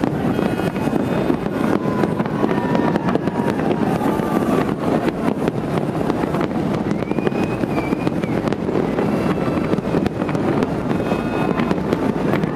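Continuous rumble and crackle of a large fireworks display, with wind on the microphone and a few scattered voices from the crowd.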